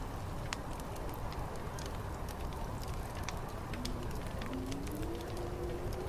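Wood fire crackling with scattered sharp pops over a steady low rumble. In the second half, a faint wind moan slowly rises and falls in pitch.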